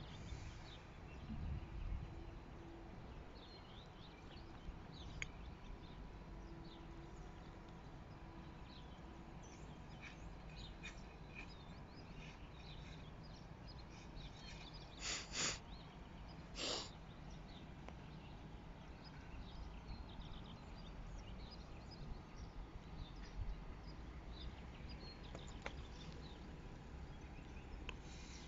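Quiet outdoor ambience: small birds chirping over a steady low wind rumble, with two short, louder sounds a little past halfway.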